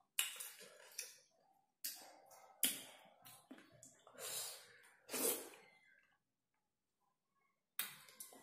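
A person eating pieces of hei-yai fruit dressed with salt and chilli powder: a string of sudden mouth sounds of chewing and breathing, roughly one a second, pausing for about two seconds before one more near the end.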